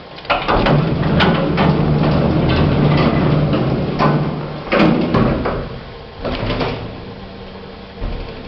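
1970s Becker hydraulic lift in operation: its doors sliding with clunks and knocks, and a steady low hum from the lift machinery for a few seconds, followed by further clatter from the doors and car.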